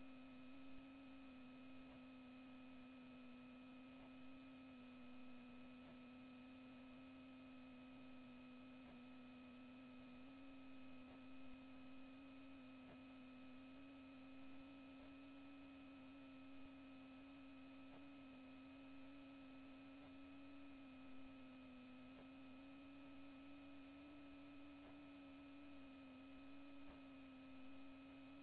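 Faint steady electrical hum, a single low tone whose pitch wavers slightly, with fainter higher tones over light hiss. It comes from the underwater camera's recording system; there is no sound from the water.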